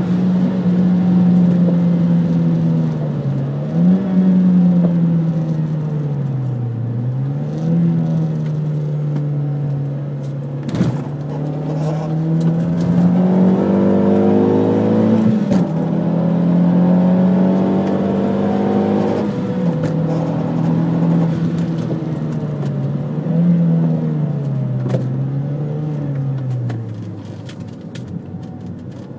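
Renault Mégane R26's engine heard from inside the cabin on track, pulling at high revs. Its note falls several times as the driver lifts and shifts down, then climbs back as it accelerates again, and it drops back near the end.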